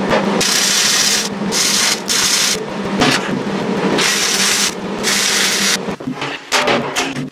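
Jefferson MIG welder arc crackling as it welds the steel of an oil-drum barbecue, in several runs of one to two seconds with short breaks between welds. About six seconds in, the welding stops and a few short knocks follow.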